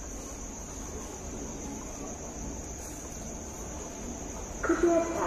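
Crickets chirring steadily in one high, even tone. Near the end a louder, pitched sound starts suddenly over them.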